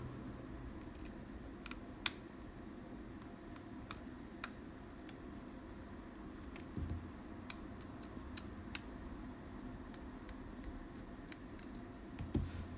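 Scattered small sharp plastic clicks and taps, irregular and a second or so apart, from a car key fob being handled and opened for a battery change, with two dull thumps, one midway and one near the end, over a low steady hum.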